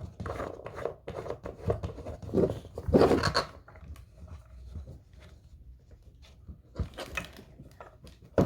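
Plastic shelf pole being screwed by hand into a corner-shelf tier: irregular scraping, creaking and light knocks of the parts turning against each other, loudest about three seconds in.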